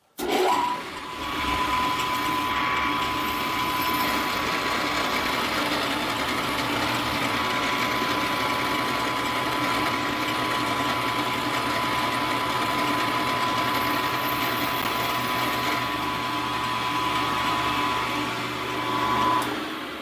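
Milling machine running and taking a cut along a thin workpiece: a steady motor hum with a constant high whine. It swells briefly near the end, then drops away.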